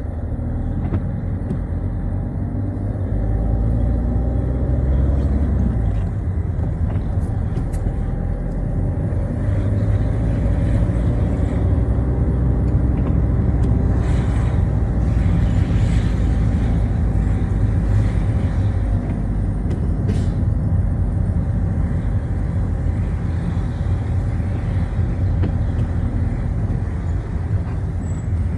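Citroën Xsara driving in traffic: the engine running under way, its note rising and falling as it speeds up and slows, over a steady rumble of tyres on a wet road. A few short clicks come about halfway through.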